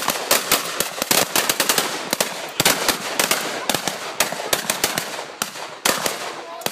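A line of shotguns firing at once in a dense, overlapping barrage of sharp shots, several a second.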